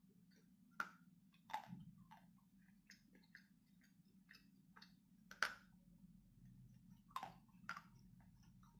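Pieces of ice being bitten and chewed, giving scattered crisp crunches between quiet pauses; the loudest crunch comes about five and a half seconds in.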